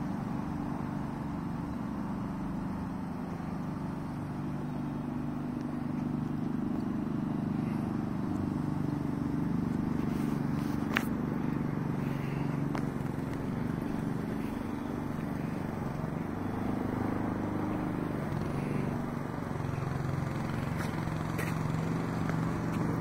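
A steady low mechanical hum with a few wavering low tones in it, and a single sharp click about eleven seconds in.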